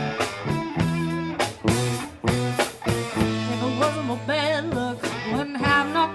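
Live blues band playing an electric blues: guitar notes bending with vibrato over bass and a drum kit.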